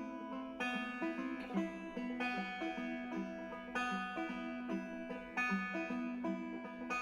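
Background music: plucked banjo and guitar playing a steady, upbeat tune.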